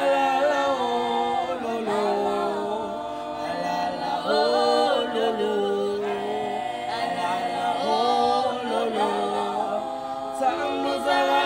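A small mixed group of school-age voices singing a cappella in harmony, several parts held together in phrases with no instruments.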